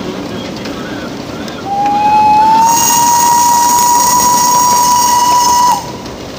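Narrow-gauge steam locomotive's whistle giving one long blast of about four seconds, starting near a second and a half in, sliding up a little in pitch as it opens and dipping as it closes, over the steady running noise of the 600 mm forest-railway freight train.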